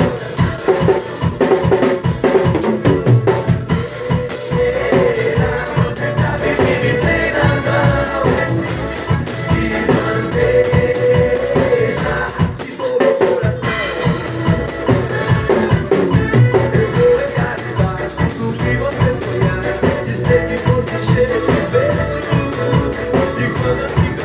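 Drum kit played along to a recorded axé song: a steady, driving beat of bass drum and snare over the track's melody and bass.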